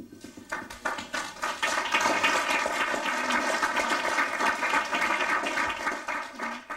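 Audience applauding: the clapping starts about half a second in, holds steady, and dies away near the end.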